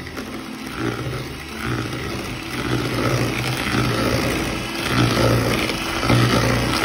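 Electric hand mixer running, its beaters churning margarine and sugar in a plastic bowl to cream them until fluffy. A steady motor hum that swells and dips, louder in the second half.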